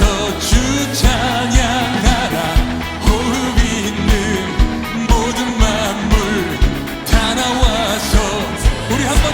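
Live contemporary worship band music with singing. A kick drum keeps a steady beat about two times a second under bass, keyboards and a wavering melody line.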